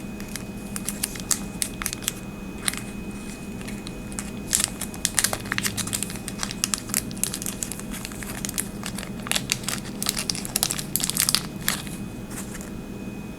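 Packaging crinkling and crackling in irregular bursts as a 16340 rechargeable battery is unwrapped from its package by hand; the crinkling stops shortly before the end.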